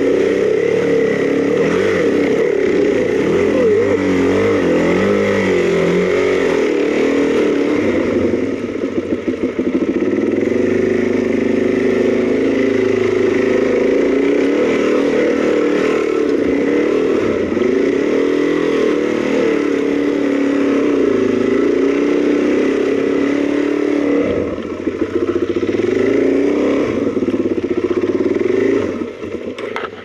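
Trail motorcycle engine running under way, close to the microphone, its revs rising and falling with the throttle. It eases off briefly about a third of the way in and again about three-quarters through, and drops away just before the end.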